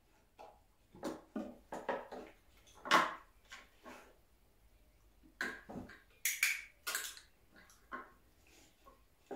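A puppy rummaging with its nose among objects in a wooden box, the objects knocking and clattering against the wood in an irregular string. The loudest knock comes about three seconds in, with a busier run of clatters a little past halfway.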